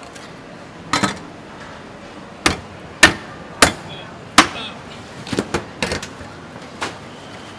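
Heavy meat cleaver chopping into a pork carcass on a stainless steel table: about ten sharp chops at uneven spacing, the loudest in the middle and the last few lighter.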